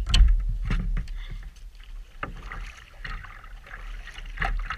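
Kayak paddle strokes, the blades dipping and splashing in the river water, with a few sharp knocks in the first second as a metal cup is handled in the boat.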